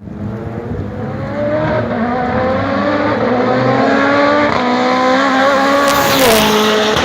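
Race car engine pulling hard at high revs, its pitch climbing steadily as it accelerates, then dropping suddenly near the end as it shifts up, with a short burst of hiss just before the drop.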